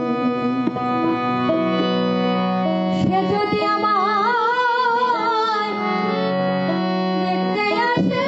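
A Bengali song: sustained keyboard-like notes changing pitch every second or so, with a wavering melody line with heavy vibrato rising over them in the middle.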